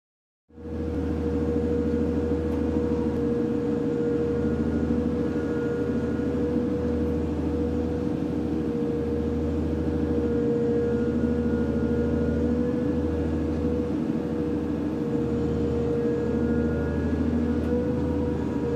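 Sea-cleaning boat's engine and hydraulic debris conveyor running steadily: a low hum under a steady whine. It starts suddenly about half a second in.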